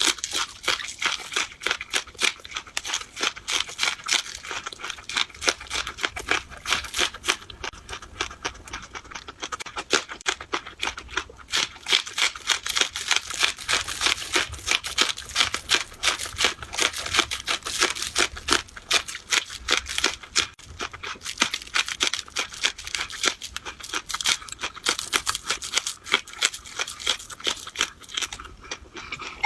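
Close-miked mukbang eating sounds: noodles being chewed with a dense, rapid run of wet mouth clicks and smacks.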